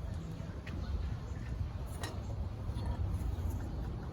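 A few faint, light clicks, about three spread over the first half, over a low steady rumble.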